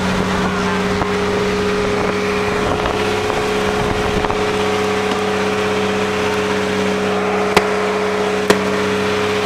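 Outrigger boat's engine running at a constant speed, a loud steady drone heard from on board. Two brief knocks near the end.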